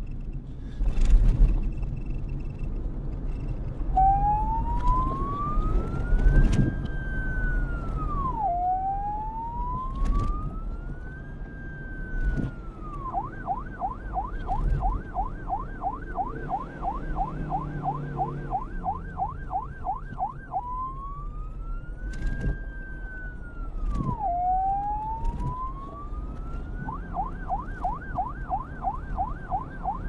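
Electronic police siren played in reverse: slow rising wails that drop off sharply, alternating with a fast yelp warbling about four times a second, starting a few seconds in. Underneath, a low rumble with scattered knocks, the loudest about a second in before the siren begins.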